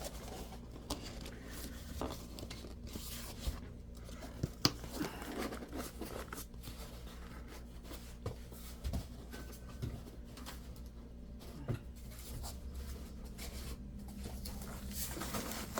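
Packaging around a replacement laptop screen being handled and opened: soft scattered rustling and crinkling with occasional light clicks and taps.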